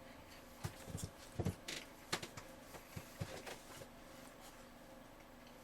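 Chewing of crispy pan-fried silkworm pupae and wild ramp: faint crunches and mouth clicks over about three seconds, then fading out.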